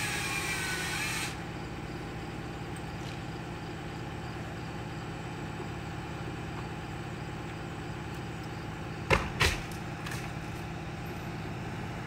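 Bucket truck's engine running steadily at idle. A brighter hissing noise over it cuts off just over a second in, and two sharp knocks come close together about nine seconds in.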